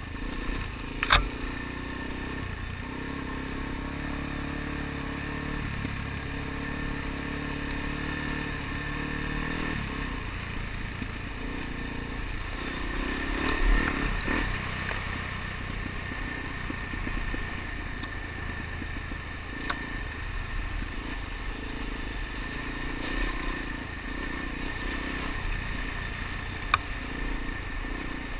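Suzuki DR-Z400 dual-sport motorcycle's single-cylinder four-stroke engine running under way on a rough gravel track, its pitch shifting with the throttle. A few sharp clicks and knocks from the bike jolting over the surface are mixed in; the loudest comes about a second in.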